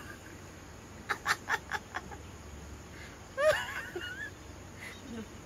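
Chickens clucking: a quick run of four or five short clucks about a second in, then a longer wavering call about three and a half seconds in.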